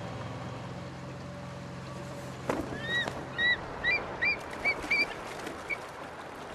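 Birds calling: a quick series of short, high calls, each bending up then down in pitch, about eight in three seconds, starting about halfway in. Under them a low motor hum fades out in the first two seconds.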